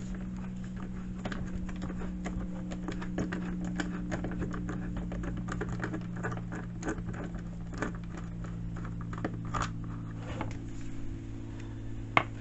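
Many small, irregular metallic clicks and taps as a hex key works the Allen-head bolts out of a chainsaw's plastic top cover, with two sharper clicks near the end, over a steady low hum.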